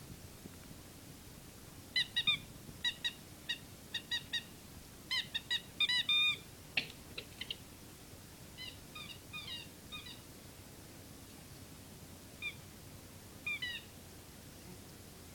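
Rubber squeaky toy ball squeaking in quick runs of short, high-pitched squeaks as it is squeezed, busiest in the first half, then a few scattered squeaks near the end.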